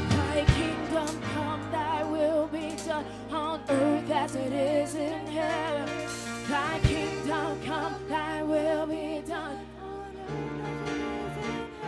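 Live worship band playing slow contemporary worship music: held keyboard and bass notes under a singer's wavering, drawn-out vocal line, with a few drum hits.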